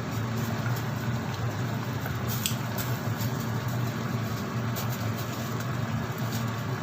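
Pot of noodles and dumplings boiling on the stove: a steady bubbling hiss over a constant low hum, with a few faint clicks.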